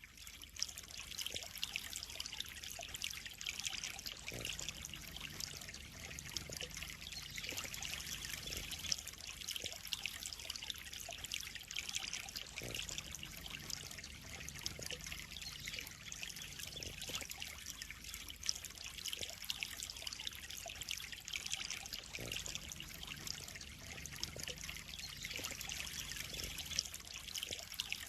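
Water steadily trickling and splashing into a koi pond.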